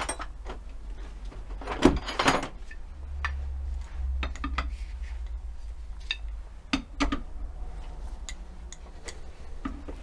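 Metal tools and parts clinking and knocking against a brake caliper held in a bench vise, in scattered sharp taps with the loudest cluster about two seconds in.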